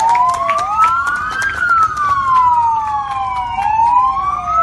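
Police car sirens wailing, two of them out of step, each tone rising and then falling slowly over a few seconds.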